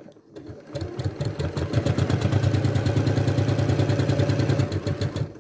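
Electric sewing machine stitching a seam across two strips of bias binding, the needle running in a rapid, even rhythm. It starts up slowly, speeds up over about the first second, runs steadily, and stops near the end.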